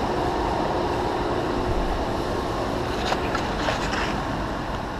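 Steady machine-shop background noise: an even rumble and hiss, with a few faint light clinks about three to four seconds in.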